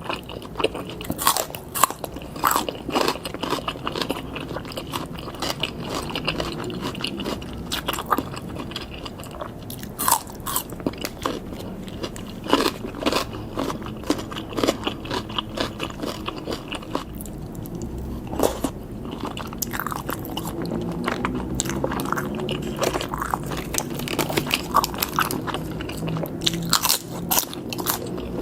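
Eating sounds: biting and chewing grilled pork and sausage skewers, with many irregular sharp crunches and mouth clicks.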